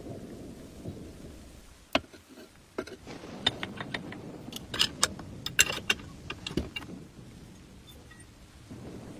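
Metal parts and tools being handled: a run of sharp clicks and clinks, thickest from about two to seven seconds in, over a low rumble.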